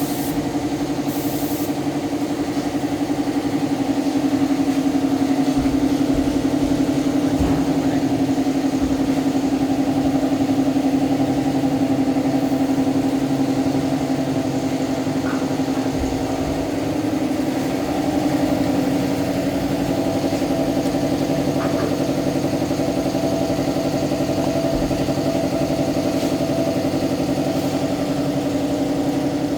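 A motor running steadily with an even, pitched hum and a faint hiss above it.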